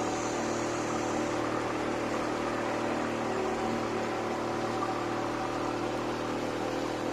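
Tour boat's engine running at a steady hum, with a constant rush of water and wind over it.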